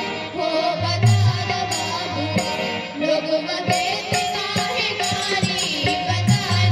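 Girls singing an Indian folk song into a microphone over amplified backing music with a steady beat and pulsing bass notes.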